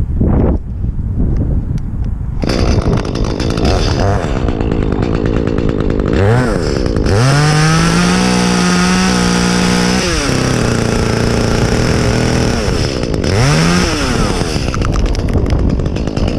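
Echo chainsaw running: revved briefly about six seconds in, then held at high revs for about three seconds before easing to a lower speed, and revved once more near the end.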